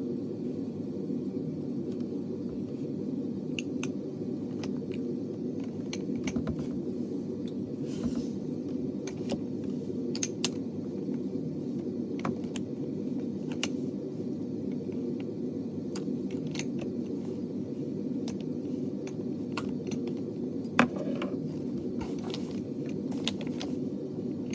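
Scattered light clicks and taps of small makeup items being handled in a makeup bag, over a steady low hum. One sharper knock comes late on.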